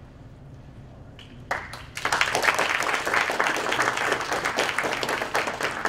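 Audience applause: a few first claps about one and a half seconds in, swelling half a second later into dense clapping from many hands.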